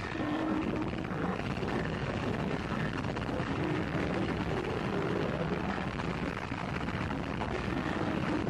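Gorenoise track: a dense, unbroken wall of harsh distorted noise, with rough low sounds churning through it.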